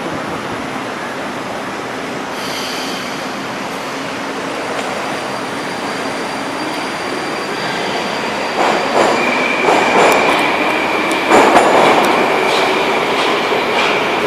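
Metrowagonmash 81-775/776/777 "Moscow-2020" metro train moving through the station: steady wheel-on-rail noise with a high electric whine, a wheel squeal from about seven seconds in, and louder rail clatter in the last few seconds.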